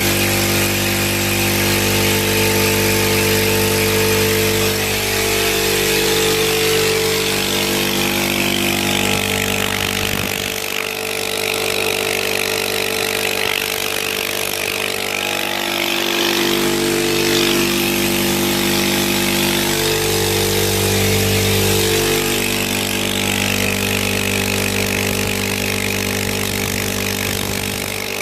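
ALDI piston air compressor running steadily with a constant motor hum, pumping unloaded with its line to the tank disconnected so it only circulates air, on a freshly replaced head gasket.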